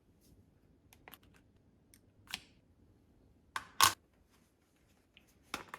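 A few scattered clicks and rustles of small items and packaging being handled, the loudest a short rustle a little over three and a half seconds in.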